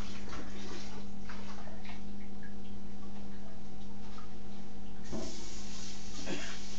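Scattered light clicks and knocks as a plastic jug is handled at a kitchen sink, over a steady low hum.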